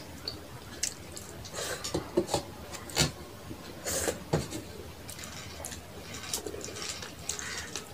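Close-miked mouth sounds of someone eating rice and fish curry by hand: chewing with wet lip smacks and clicks, the sharpest of them between about one and four and a half seconds in.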